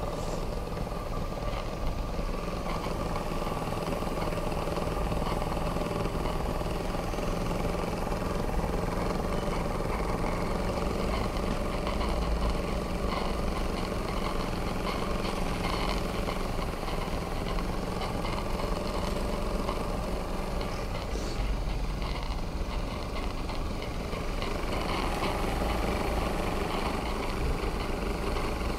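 Twin-cylinder live-steam model marine engine running steadily on steam at about 30 psi from its vertical boiler.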